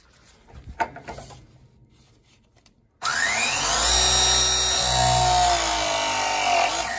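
Battery-powered pipe press tool crimping a copper press fitting: after a few faint handling clicks, the motor starts about three seconds in with a rising whine, runs steadily for about four seconds while the jaw closes, and stops just before the end.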